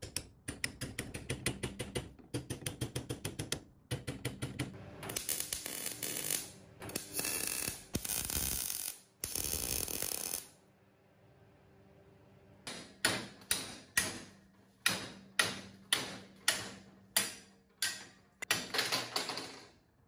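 Metalwork on a steel tube frame: rapid hand-hammer taps on a steel mount, then a MIG welder crackling in several bursts of a second or so. After a short pause come about a dozen separate hammer blows on the frame, about two a second, and another brief burst of crackle near the end.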